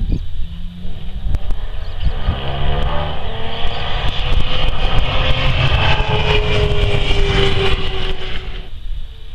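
2014 Audi R18 e-tron quattro Le Mans prototype's turbodiesel V6 passing at speed: the engine note builds over several seconds and then drops in pitch as the car goes by. The sound cuts off suddenly near the end.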